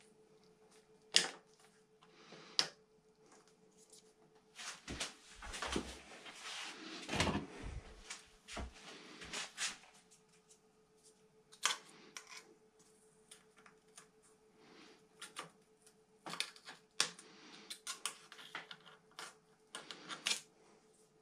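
Hands working on road bike handlebars and a brake-shift lever with small tools: scattered sharp clicks and taps, with a busier stretch of rustling and knocking about five to nine seconds in.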